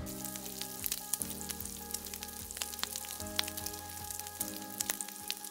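Bacon frying on a flat-top griddle, a steady sizzle with dense crackling pops, under soft sustained music chords.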